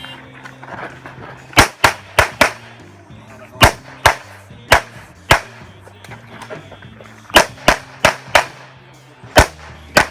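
Handgun shots fired in quick pairs and singles, about fourteen in all, as a competitor engages targets. Background music with a steady low bass line plays underneath.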